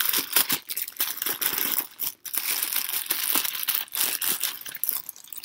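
Clear plastic packaging bag crinkling as it is handled, in a dense run of crackly rustles with a short break about two seconds in.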